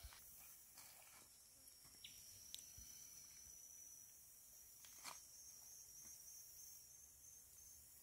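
Near silence: faint tropical-forest insect ambience, a steady high-pitched drone, with a few faint clicks.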